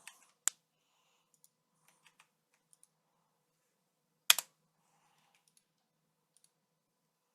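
A few sharp clicks: one about half a second in and a louder double click about four seconds in, with faint ticks between.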